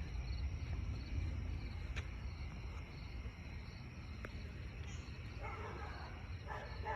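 Outdoor ambience: a steady low rumble with faint, evenly repeating high chirps. Voice-like murmuring comes in near the end.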